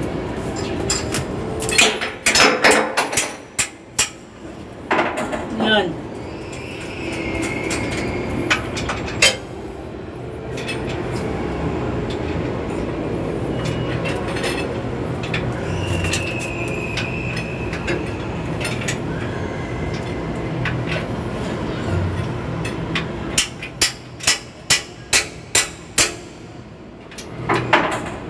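Metal knocks and clinks of hand tools working on a vehicle's underside during gearbox removal, with a quick run of about half a dozen sharp taps near the end.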